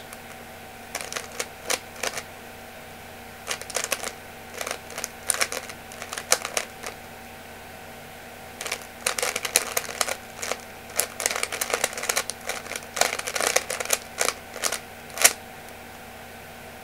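A 3x3 speedcube being turned fast by hand: its plastic layers clicking and clacking in quick bursts of turns, with short pauses between bursts and the longest pause about seven seconds in.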